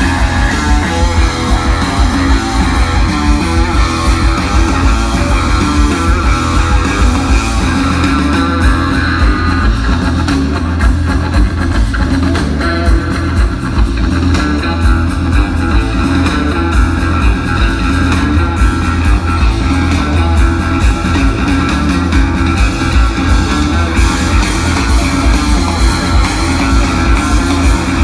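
Live blues-rock: an electric guitar and a drum kit playing loud together, with drum hits throughout.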